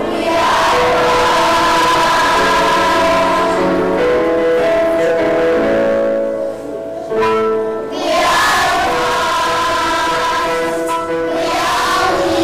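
Children's choir singing phrases of held notes, with a brief break between phrases a little past the middle.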